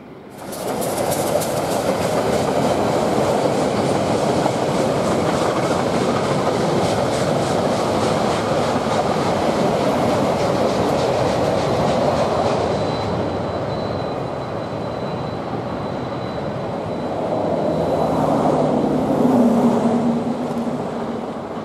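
Steam locomotive Jb 1236 passing close under steam, the loud rush of its exhaust and the clatter of wheels and carriages on the rails. From about 17 s in, a steady engine drone joins as the trailing DFB diesel locomotive goes by.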